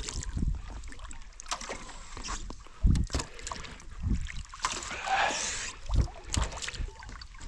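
A kayak paddle dipping and splashing in the water at an uneven pace, with a few dull knocks against the hull.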